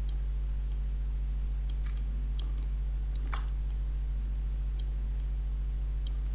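Computer mouse clicking now and then, about a dozen short clicks with a louder one around the middle, over a steady low electrical hum.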